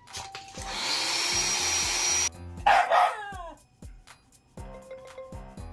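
Handheld electric air pump whirring for about a second and a half, its pitch rising as it spins up, then cutting off. A Shiba Inu answers with a loud, angry bark that falls in pitch.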